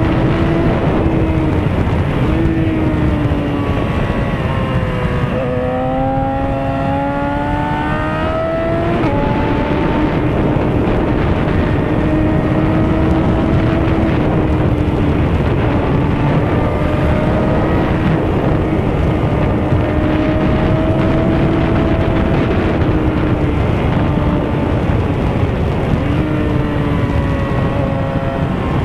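Inline-four sport bike engine running at a steady cruise, heard from the rider's seat over heavy wind rush. About four seconds in the pitch drops as the throttle is rolled off, then climbs back up over the next few seconds as the rider gets back on the gas; it briefly dips again near the end.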